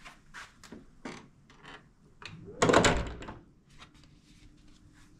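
Hotel room door swinging shut with a single heavy thud about two and a half seconds in, after a run of light taps and clicks.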